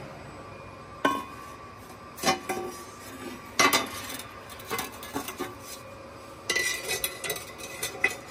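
Bent sheet-steel part clinking and clanking against the press brake's steel die and tooling as it is lifted out, turned and set back in; a handful of sharp metallic knocks, spaced about a second apart, with a quicker run of clinks near the end.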